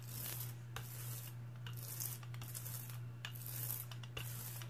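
Rubber brayer rolled back and forth over thick chalk paint on a stencil on a gel plate, a scraping hiss with each stroke, about five strokes each a little under a second long.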